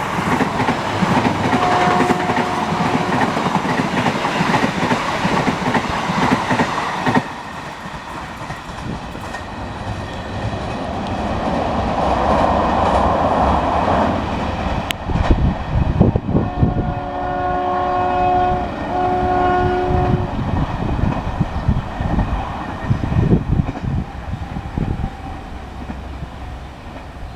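Passenger train running past with its wheels clacking over rail joints. The shrill horn of its CC 201 diesel locomotive gives a short note about two seconds in, and later two longer blasts, the second briefly after the first.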